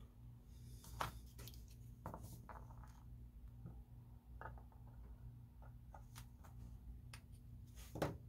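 Faint clicks and taps from small plastic model parts being handled, the sharpest about a second in and just before the end, over a steady low hum.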